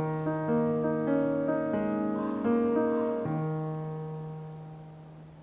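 Slow background piano music, single notes and chords ringing out; the last chord comes about three seconds in and slowly dies away.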